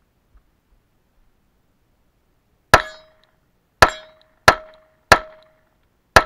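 Five pistol shots from a Glock 43 9mm fitted with a home-made muzzle brake: the first almost three seconds in, then four more in quick succession. Each shot is followed by a brief ringing tone, the steel target being hit.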